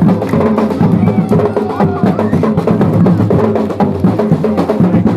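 Music with a dense, fast percussion beat: many quick drum strikes over a low pitched line, keeping on without a break.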